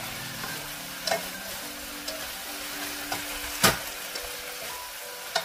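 Fried pollock skin being stirred through bubbling soy-based sauce in a wok with a wooden spatula and chopsticks: a steady sizzle, with a few sharp knocks of the utensils against the wok, the loudest a little past halfway.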